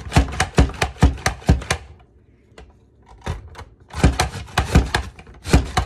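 Upright push-down mandoline vegetable chopper being pumped by its plunger, about three sharp clacks a second, as onion quarters are forced through the blade. The strokes break off for about a second, about two seconds in, then resume at the same pace.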